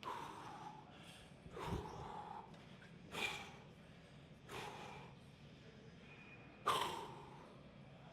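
A man breathing hard, with a sharp forceful exhale about every one and a half seconds, in rhythm with reps of a heavy leg press set.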